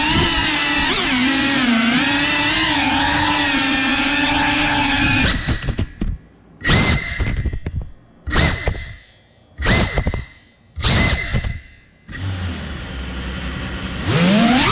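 Cinewhoop FPV drone's brushless motors and ducted propellers whining, the pitch wavering with the throttle. About five seconds in, the throttle is cut and punched in four short bursts with much quieter gaps while the drone flips over. A lower steady hum follows, then near the end the full whine returns with a rising pitch.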